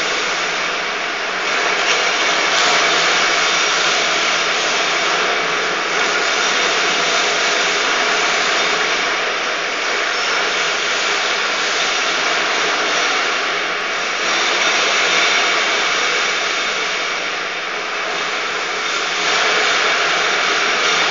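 HS 5000 light floor grinding machine running steadily, sanding down an epoxy floor coating ahead of the final coat: a loud, even whir and hiss that swells a little now and then.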